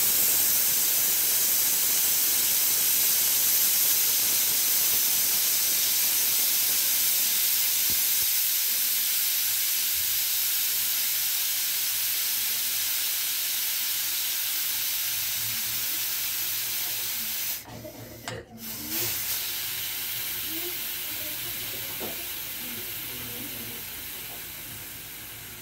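Aluminium stovetop pressure cooker venting steam through its whistle vent with a steady hiss as the weight is lifted with a spoon to release the pressure after the first whistle. The hiss fades gradually as the pressure drops, and cuts out briefly about two-thirds of the way through before resuming.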